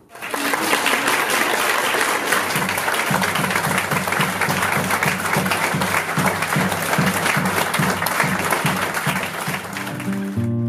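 Theatre audience applauding steadily. About two and a half seconds in, a low rhythmic musical line comes in under the clapping, and acoustic guitar strumming rises at the very end.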